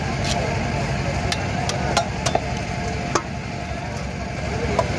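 Catla carp being cut on upright bonti blades: irregular sharp clicks and scrapes of flesh, bone and scales against the steel, over a steady low rumble.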